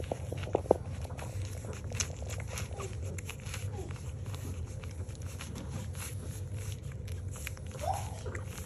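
Newborn French Bulldog puppies nursing: a steady run of quick wet suckling and smacking clicks. There are a few sharper clicks in the first second, and a short rising puppy squeak near the end.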